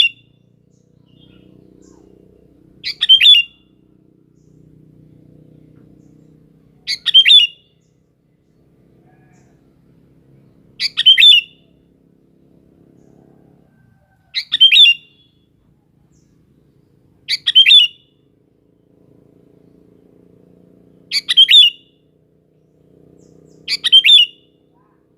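Sooty-headed bulbul (kutilang) calling: a short, bright burst of two or three quick notes, repeated seven times at intervals of about three to four seconds.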